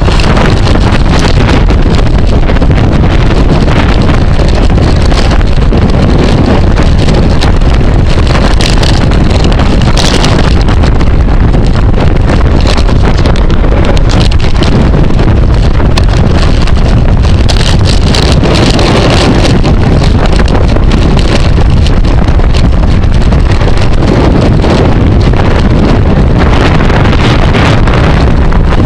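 Heavy, steady wind buffeting on the microphone of a camera moving at bicycle racing speed, with scattered short clicks and rattles.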